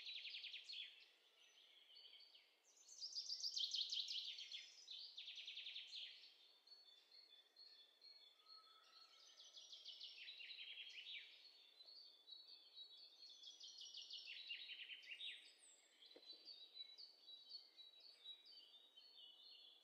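Birdsong sound effect: songbirds chirping, with phrases of rapid trilled notes coming every few seconds. The loudest trills are a few seconds in.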